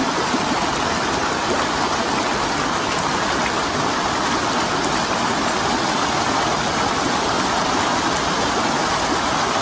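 Flowing stream water rushing steadily.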